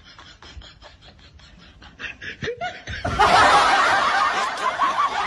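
Faint quick clicking, then about three seconds in loud laughter breaks in suddenly and carries on.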